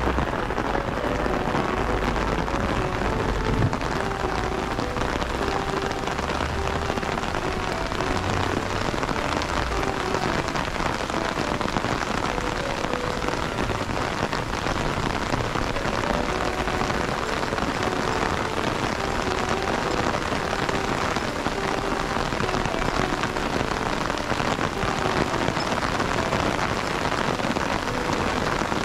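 Rain falling steadily, a continuous even hiss of rain on surfaces.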